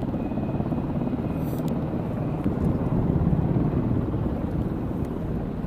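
Steady low rumble of a jet aircraft engine running, growing a little louder in the middle.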